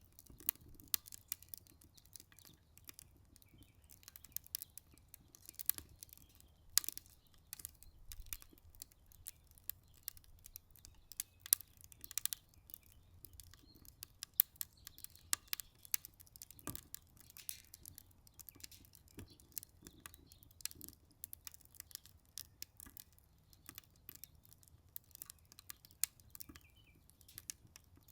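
Wood fire crackling in a Solo Stove Ranger fire pit, burning partly rotten wood: irregular sharp pops and snaps over a low steady rumble.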